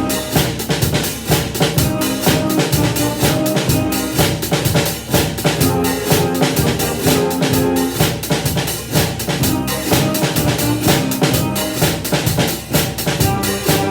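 Drum kit playing a blues beat: bass drum and snare alternating in a steady walking rhythm, with sticks on a closed hi-hat.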